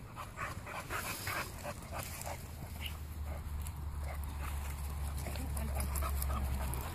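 Continental Bulldogs at play, a quick run of short breathy dog sounds in the first couple of seconds and scattered ones after. A steady low rumble builds from about halfway through.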